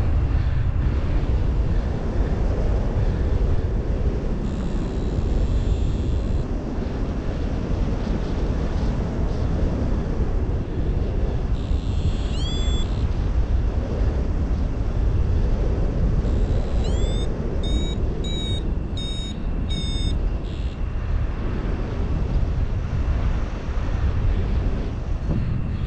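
Wind rushing over the microphone of a paraglider in flight, a steady low rumble. About twelve seconds in a short electronic tone rises in pitch, and from about seventeen to twenty seconds comes a run of short beeps, about two a second: a flight variometer signalling lift.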